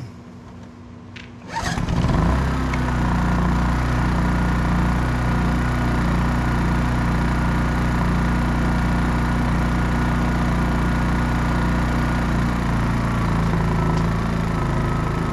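Honda EU3000i inverter generator's rebuilt single-cylinder engine starting with the choke on, catching about a second and a half in and then running steadily.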